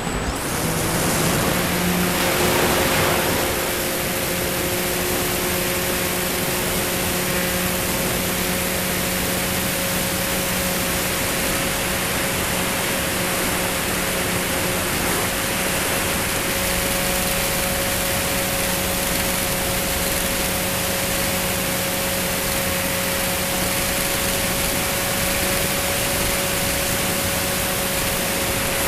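E-flite Timber RC plane's electric motor and propeller running at a steady pitch, picked up by a camera mounted on the wing under heavy wind rush. The motor comes in about a second in, a little louder for the first few seconds, then holds steady.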